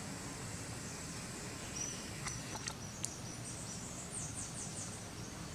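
Outdoor ambience: steady background noise with a thin high insect drone, a few small clicks near the middle, and a quick run of about five high, falling chirps about four seconds in.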